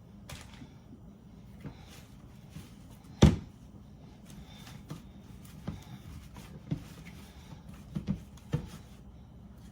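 Kitchen handling sounds while a box of parchment paper is got out and the paper pulled off: a sharp knock about three seconds in, then several lighter knocks and rustles.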